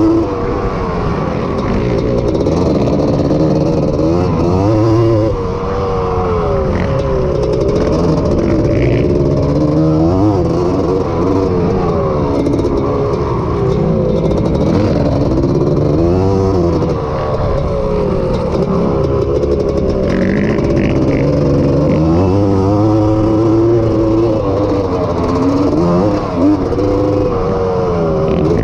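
Honda ATC250R three-wheeler's two-stroke single-cylinder engine racing on a motocross track, revving up and down over and over as the rider accelerates, shifts and backs off for corners and jumps.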